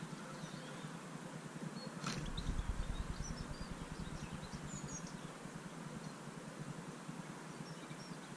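Faint, short, high chirps of goldfinches at a seed feeder over a steady background hum. About two seconds in there is a single knock, followed by a low rumble for a couple of seconds.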